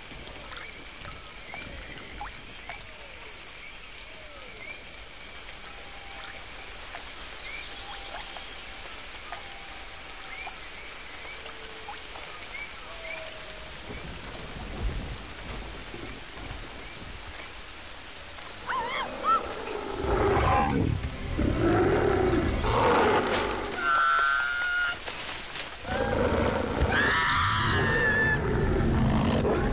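Steady rain in a jungle at night with scattered faint chirping calls, then, about two-thirds of the way through, a large animated monster's loud roars and snarls, several of them rising and falling.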